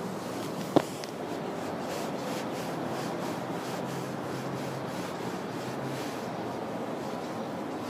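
Close rubbing and brushing noise at the camera microphone as a ginger tabby cat's fur is stroked and the camera is handled right against it, with one sharp click about a second in.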